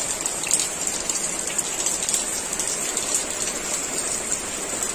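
Steady rain falling on grass and plants, an even hiss with scattered ticks of single drops.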